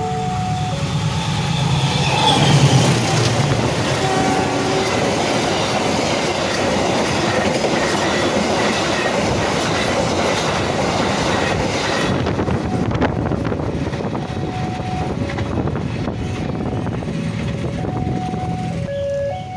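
Argo Sindoro passenger train, hauled by a diesel locomotive, sounds its horn a couple of seconds in and then passes close at speed: a loud rush of wheels and coaches that drops away sharply about twelve seconds in. Near the end the level-crossing warning alarm is heard, sounding repeating electronic chime tones.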